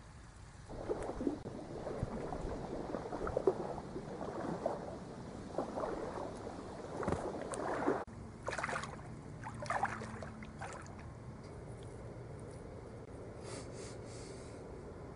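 Several seconds of irregular rustling noise that stops abruptly. Then bare feet wade through shallow lake water with two splashes about a second apart, followed by fainter water sounds.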